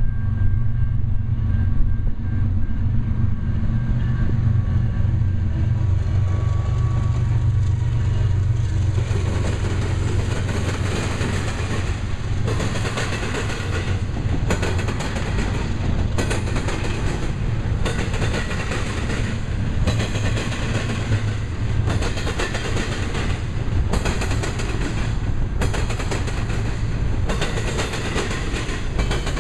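A double-stack container train passing, first with the steady low drone of its lead GE ES44DC diesel locomotive, which fades within the first several seconds. Then comes the steady rumble of the loaded well cars, with a sharp wheel clack over the rail joints every second or two.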